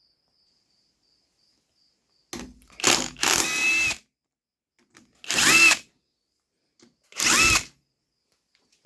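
An electric power driver runs three times, unscrewing the transmission's bell-housing case bolts. The first run is longest, at about a second and a half, and the two later runs are short. Each time the motor whine rises quickly and then holds steady.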